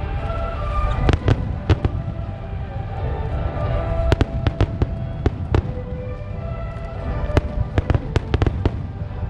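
Aerial fireworks bursting in a rapid, irregular string of sharp bangs over a continuous low rumble, with music of held notes playing alongside.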